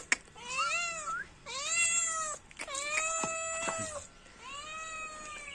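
Domestic cat meowing four times in a row, each meow rising then falling in pitch.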